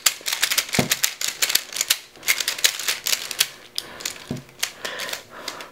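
ShengShou Gem Pyraminx being turned rapidly: a fast, irregular run of sharp plastic clicks as its layers turn and snap into place on the ball bearings that hold them in position.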